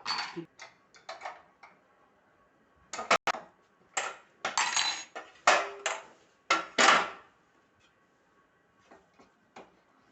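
Clattering and knocking of parts being handled during a sewing machine setup: a sharp knock about three seconds in, then a run of rattling clatters, then quiet.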